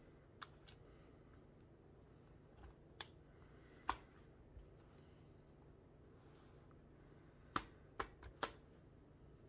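Plastic building-block parts clicking as Technic-style pins and beams are pressed together by hand: a few scattered sharp clicks, the loudest about four seconds in, then a quick run of four near the end.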